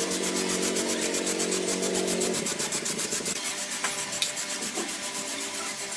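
Rapid rhythmic sanding strokes, about eight a second, as a part is rubbed down by hand. A steady low hum runs under them and stops about three seconds in.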